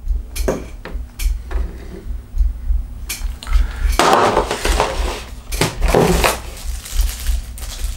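Handling of a battery charger, its cables and a cardboard box being rummaged through: scattered clicks and knocks, with longer rustling bursts about four seconds in and again near six seconds.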